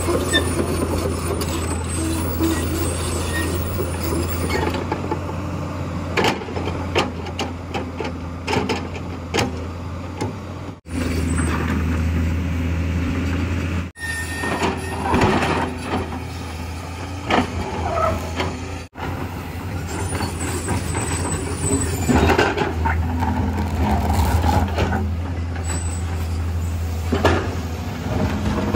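JCB JS215 tracked excavator's diesel engine running steadily under load, with irregular knocks and scrapes as its steel bucket works against concrete and soil.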